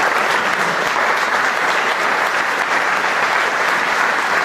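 Audience applauding steadily, a sustained ovation of many hands clapping in a theatre.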